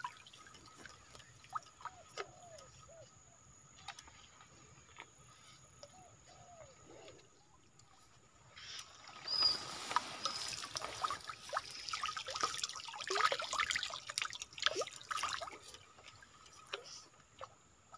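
Water trickling and dripping from a bamboo-framed lift net and a hand net over a muddy stream. About halfway through it grows into a louder streaming and splashing of water for several seconds, as from a net being raised, then falls away to scattered drips.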